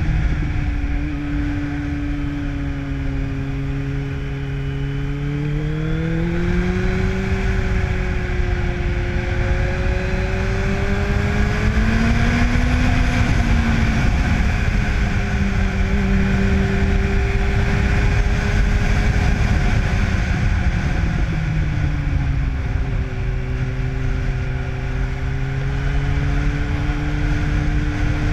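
2005 Yamaha FZ1's inline-four engine breathing through a Dan Moto aftermarket exhaust while being ridden. The engine note rises about six seconds in and peaks near the middle, then eases off and drops again about three-quarters through. Wind rushes over the microphone throughout.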